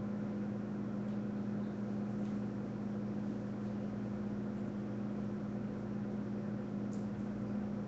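A steady low hum with a faint hiss underneath, unchanging throughout: background room noise of a machine or electrical equipment.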